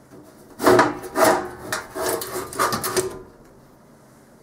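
Sheet-metal top cover of a Bay Networks 28115/ADV switch being slid off its chassis: four or five scraping rubs of metal on metal, the last near three seconds in.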